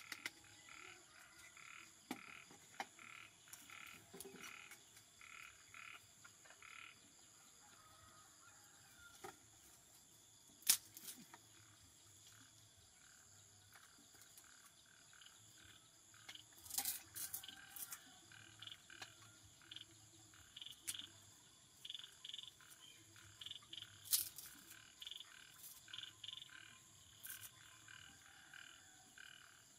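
Frogs croaking, short calls repeating in a steady rhythm of about two a second, fading out for a while midway and coming back. A few sharp knocks cut in, the loudest about 11 and 24 seconds in.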